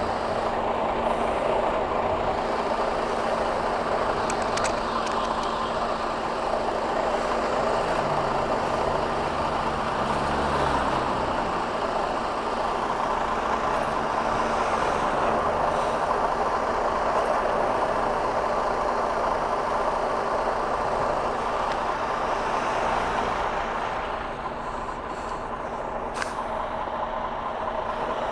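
Semi-truck's diesel engine running steadily as it manoeuvres, its low engine note shifting in pitch during the first dozen seconds, with a couple of brief sharp clicks.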